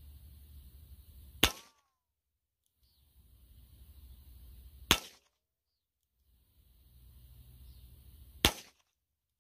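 Three shots from a Heritage Rough Rider .22 LR single-action revolver, about three and a half seconds apart, each a short sharp crack. A faint low rumble sits between the shots.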